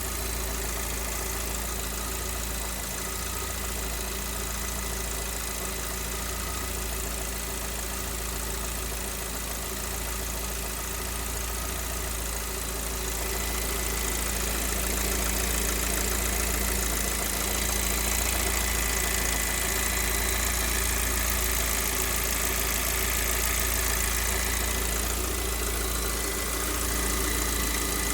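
A Lada VAZ-21127 1.6-litre 16-valve four-cylinder engine idling hot with a suspicious knock. The owner suspects the cylinder-head defect said to have affected engines built at the end of 2020. The sound gets slightly louder about halfway through.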